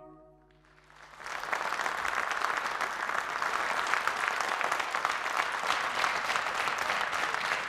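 A held final chord from the band fades out, and about a second in a studio audience breaks into steady applause.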